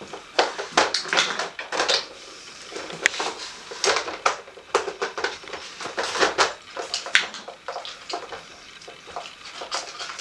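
A dog pawing and nosing at a hard plastic treat puzzle board, making irregular plastic clicks, scrapes and clatter with a few sharper knocks.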